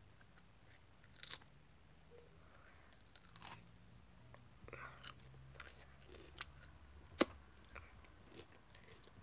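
Faint chewing of Pringles crisps, with scattered sharp crunches of the crisps breaking between the teeth; the loudest crack is about seven seconds in.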